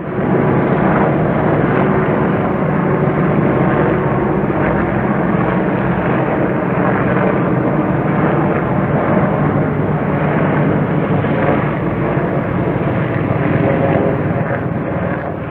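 A loud, steady droning noise with a low hum running through it, starting abruptly and beginning to fade near the end.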